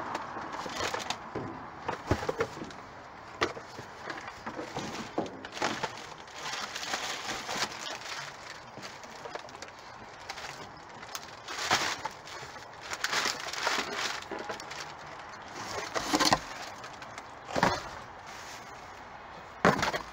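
Cardboard boxes and plastic packaging being handled and shifted by hand: rustling and crinkling with scattered sharp knocks and crackles, growing busier in the second half, with the loudest crackle just before the end.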